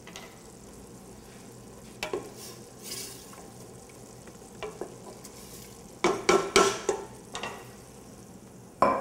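Wooden spoon stirring risotto in stainless steel pots over a low steady hiss, with scattered light knocks against the pot. A cluster of louder knocks and clatter comes about six seconds in, and another sharp knock near the end.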